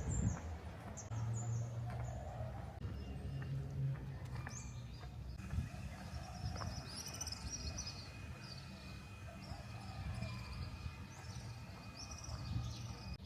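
Birds chirping here and there in short calls over a low steady hum of background noise.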